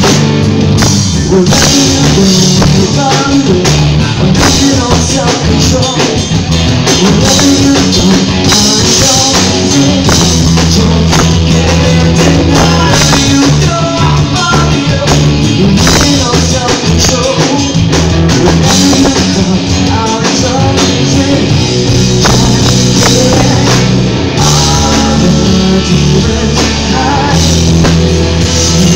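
Live rock band playing loud: distorted electric guitars, bass guitar and a drum kit keeping a steady beat.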